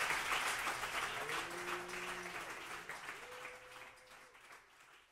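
Audience applauding, the clapping fading out steadily.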